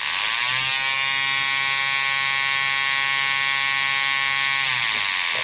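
Homemade two-transistor air-raid siren wailing through a small loudspeaker: a harsh, buzzy tone that starts suddenly, rises in pitch over about the first second, holds steady, then slides down near the end.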